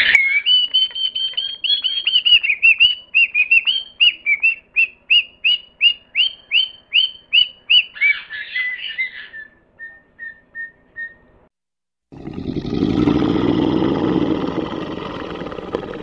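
A bird whistling a fast series of short, sharply downslurred notes, about two a second. The notes end in a brief trill and a few fainter, evenly spaced notes. After a short silence a dense, noisy sound with most of its weight low begins about twelve seconds in and slowly fades.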